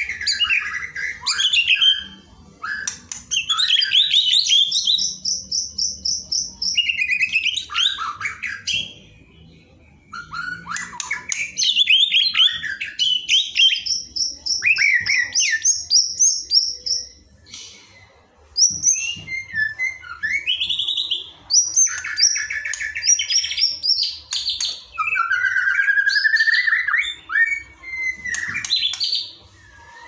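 White-rumped shama singing a long, varied song of rich whistles, slurred notes and fast high trills, with brief pauses about ten and eighteen seconds in.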